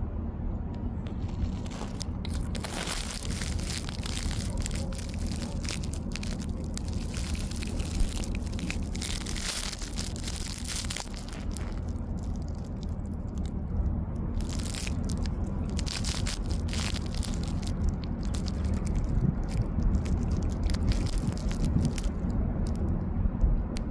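Irregular crunching and crackling over a steady low rumble.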